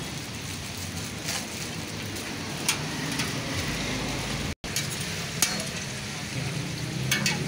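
Chicken pieces and buns sizzling steadily on a flat steel griddle, with a few sharp clicks. The sound cuts out for an instant just past halfway.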